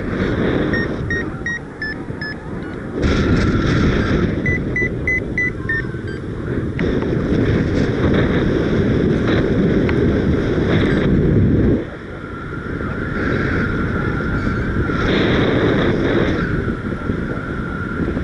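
Airflow rushing over the microphone of a paraglider in flight, in gusts that rise and drop abruptly. Two short runs of quick, even beeps come from a flight variometer signalling climb, one in the first second or two and another about five seconds in.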